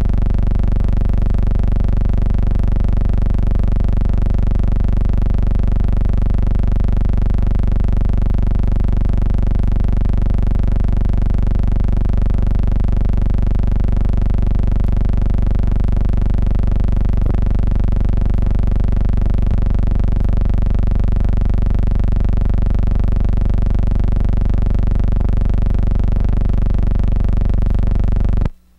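A loud, steady electrical hum with many evenly spaced overtones, unchanging throughout, that cuts off abruptly near the end.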